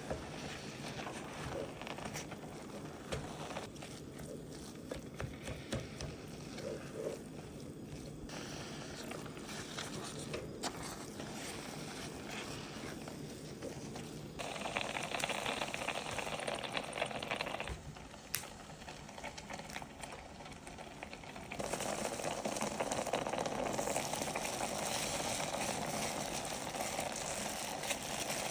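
Kitchen cooking sounds: a steady hiss of liquid, like bubbling or running water, that turns abruptly louder for a few seconds past the middle and again near the end.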